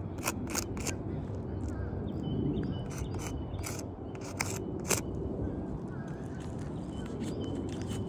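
Irregular sharp clicks and scuffs on an asphalt-shingle roof over a steady low rumble, with a few faint, short high chirps.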